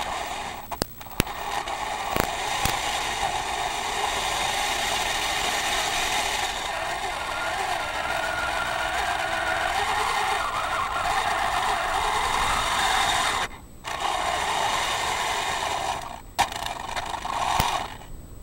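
Metal Mato Tiger I RC tank's brushless drive motors and gearboxes running as the tank drives, a steady mechanical whirr with a few sharp clicks in the first seconds. It cuts out briefly twice and stops shortly before the end.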